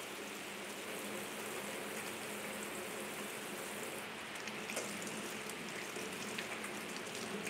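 Kitchen tap running steadily into the sink while hands are washed under it.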